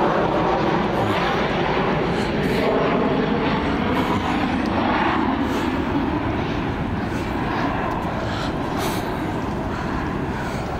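Steady drone of an aircraft engine overhead, slowly fading.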